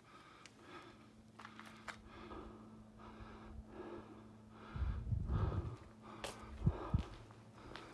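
A hiker's rhythmic breathing close to the phone's microphone, roughly one to two breaths a second. Near the end there is a rumble of the phone being handled, with two low thumps.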